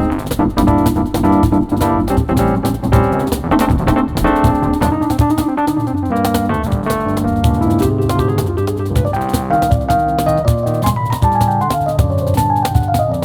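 Piano and percussion duo playing an instrumental jazz-MPB piece: busy, rapid drum strokes under piano chords and melody, with a falling run of piano notes near the end.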